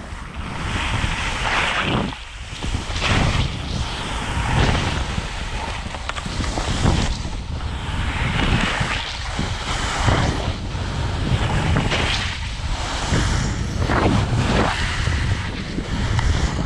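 Wind rushing over the camera's microphone on a fast downhill run on snow, with surges of snow hissing and scraping under the edges at each turn, every second or two.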